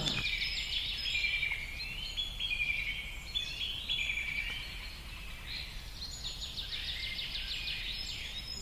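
Rural outdoor ambience: repeated high-pitched chirping trills that step up and down in pitch, over a low steady background noise.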